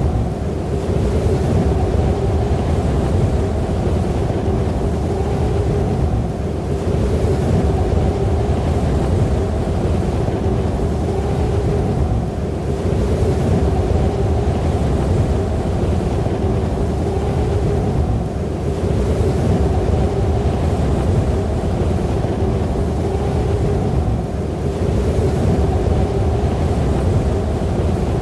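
Snowstorm wind sound effect: steady blowing wind with a heavy low rumble and a held low tone running through it. It eases for a moment about every six seconds, then builds again.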